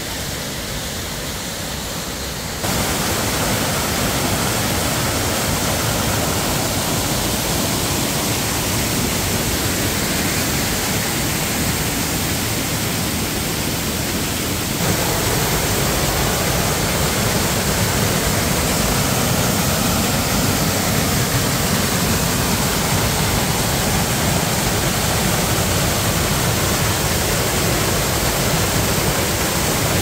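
Roar of a large waterfall: a steady, dense rush of falling water that gets abruptly louder about two and a half seconds in and again about fifteen seconds in.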